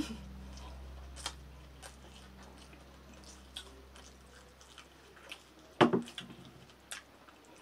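Mouth sounds of people chewing and eating momos, with scattered small clicks and smacks. A louder brief sound comes a little under six seconds in.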